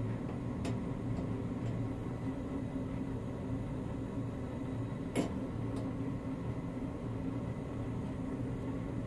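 Steady low mechanical hum of a fan or air-handling unit, with a few faint light ticks, the clearest about five seconds in.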